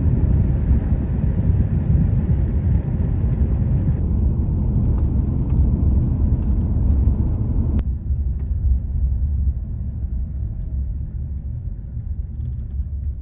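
Steady low rumble of a vehicle driving, road and engine noise heard from inside, with two abrupt changes in tone about four and eight seconds in.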